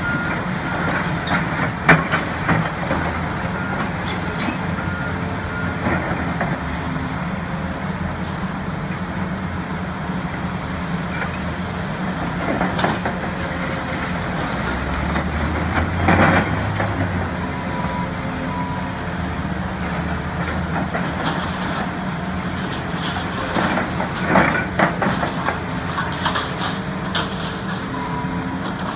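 Volvo excavator's diesel engine running steadily, with occasional sharp clanks and knocks as it moves debris, the loudest about two seconds in, around the middle and again a few seconds later.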